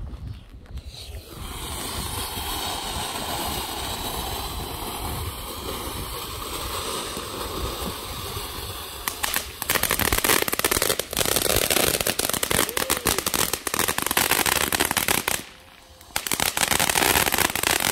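Ground fountain firework going off: a steady hiss starts about a second in, then turns into dense, rapid crackling about halfway through, which drops out briefly near the end and starts again.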